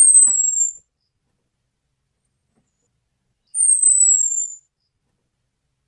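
Orange-headed thrush (anis merah) giving its thin, high 'cuitan' call, a lure call for males: a short whistle sliding slightly down in pitch, heard twice about three and a half seconds apart.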